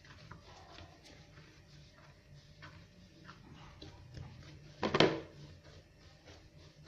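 Soft yeast dough being kneaded by hand on a stone countertop: faint squishing and small taps as the dough is pressed and folded. About five seconds in, a short, loud pitched sound cuts in once.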